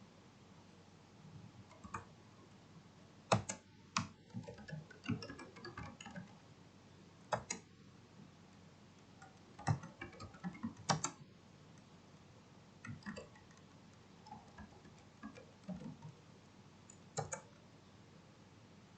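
Computer keyboard and mouse clicks: scattered single clicks and short irregular runs of key taps, with pauses between.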